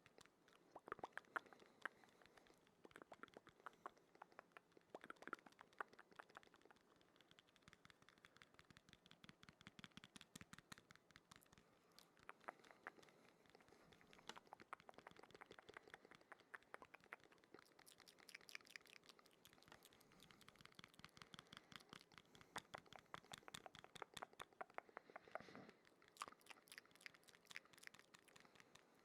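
Quiet, close-up wet mouth sounds for ASMR: rapid runs of soft clicks and smacks, coming in clusters with short pauses between them.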